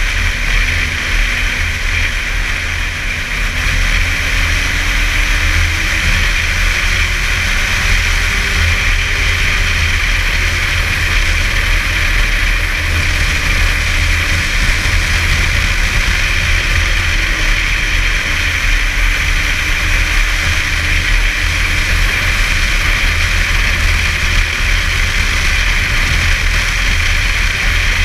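Snowmobile engine running steadily along a trail, its pitch rising and falling gently with the throttle, over a continuous low rumble and wind noise on the microphone.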